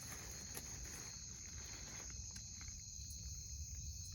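Crickets or other night insects trilling steadily in one high, unbroken band, over a low rumble.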